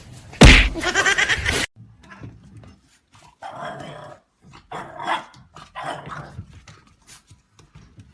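A dog growling and barking: one loud burst about half a second in that cuts off suddenly, then several shorter, quieter calls about a second apart.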